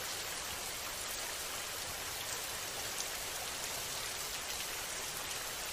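Steady recorded rain: an even hiss with faint scattered drop ticks, used as the calm masking bed of a subliminal audio track.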